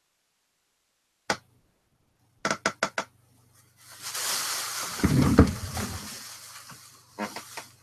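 Handling noise at a workbench: a sharp click, then a quick run of four clicks, then a few seconds of loud rustling of a plastic sheet with a heavy bump in the middle, and a few more clicks near the end.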